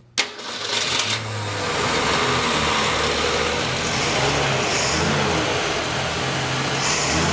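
1965 Ford Falcon inline-six engine, fed by an Autolite 1100 carburetor, starting about a quarter second in and settling into a steady run.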